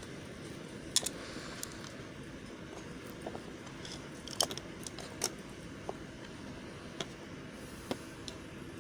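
Soft-soap making handled up close: scattered light clicks and taps at irregular intervals over a steady low hiss, the sharpest about four and a half seconds in.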